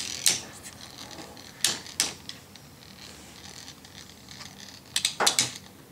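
Beyblade spinning tops clacking against each other and the plastic stadium in sharp clicks: a pair near the start, two more about two seconds in, and a quick run of four about five seconds in.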